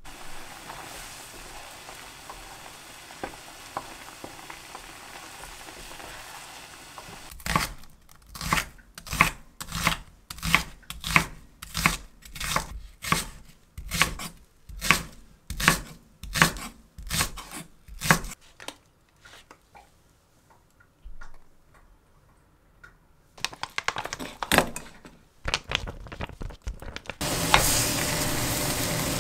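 Kitchen knife slicing onion on a wooden cutting board, even strokes about one and a half a second, with a few more cuts after a pause. Near the end a pan of webfoot octopus and onion starts sizzling as it is stir-fried.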